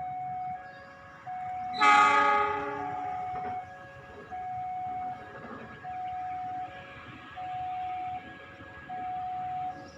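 A short blast of a train locomotive's horn about two seconds in, fading over about a second, over a repeating electronic two-tone warning chime that sounds about once a second, like a railway level-crossing alarm.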